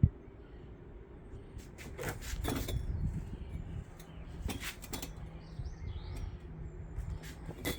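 Outdoor garden ambience: faint bird chirps over a low rumble, with a sharp click at the start and several sharp knocks through the middle and near the end.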